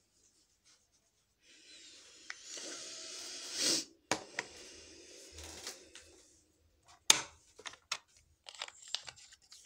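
Close rustling and rubbing handling noise for a few seconds, then a series of sharp clicks and taps as small objects are handled and set down.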